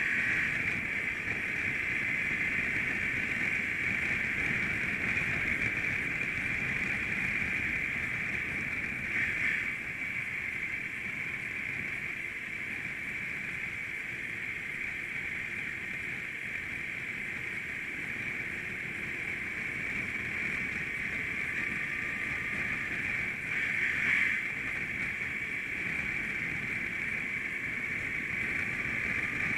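Big adventure motorcycle being ridden on a dirt road: steady wind and engine noise at the handlebar camera, swelling briefly twice.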